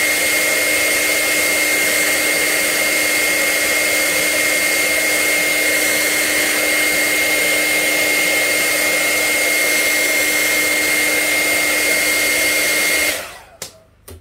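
Handheld hair dryer running steadily at full blast: a rush of air with a steady high motor whine. It is switched off about a second before the end and winds down, followed by a couple of faint taps.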